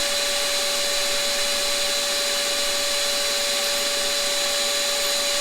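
Harig Super 612 surface grinder's spinning wheel and a vacuum running together: a steady, even whine with a single held tone over a rushing hiss.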